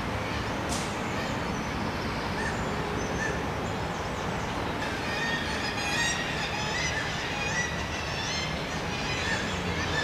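A colony of black-legged kittiwakes calling: a busy chorus of short, repeated shrill calls that thickens from about halfway through, over a steady background hum.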